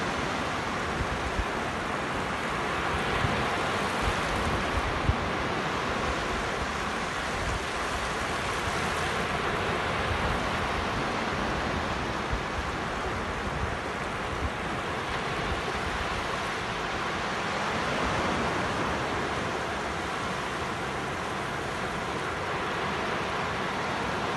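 Sea surf breaking and washing up a sandy beach: a steady rush of water that swells and eases slowly, with foam running over the wet sand.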